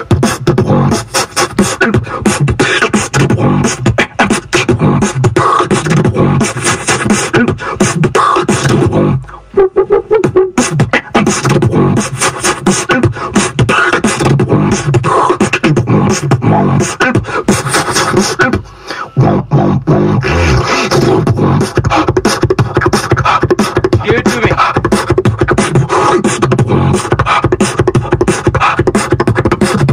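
Solo beatboxing: a fast, rhythmic stream of vocal kick drums, snares and clicks over deep bass tones. It breaks off briefly about nine seconds in and again near nineteen seconds.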